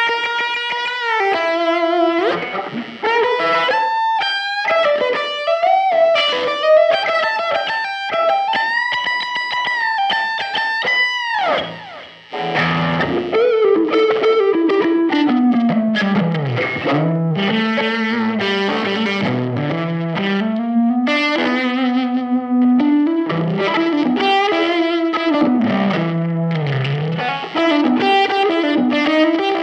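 Electric guitar strung with GHS Boomers strings, played with distortion: long sustained high notes with bends and vibrato, then after a short break about twelve seconds in, a lower melodic line with slides between notes.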